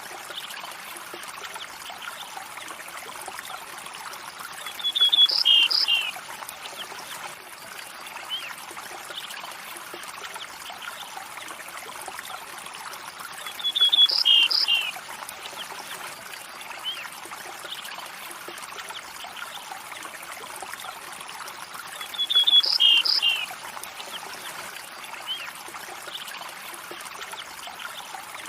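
A river or stream running and trickling steadily. Three times, about nine seconds apart, a short high chirping bird call rises above the water, the same call each time.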